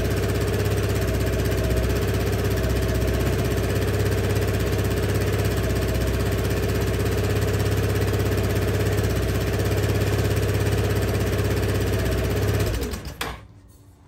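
2001 Honda Helix scooter's single-cylinder four-stroke engine idling steadily on its newly fitted electronic choke, then switched off near the end and winding down quickly.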